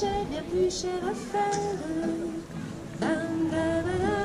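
A mixed choir of men and women singing a Christmas carol without accompaniment, in long held notes. One phrase ends a little before three seconds in and a new one starts about three seconds in.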